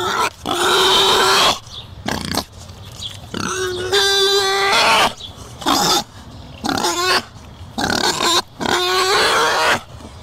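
Sheep bleating repeatedly, a series of wavering calls of about a second each with short gaps between. At the start, a shrill, harsh animal call belongs to the earlier fennec fox shot.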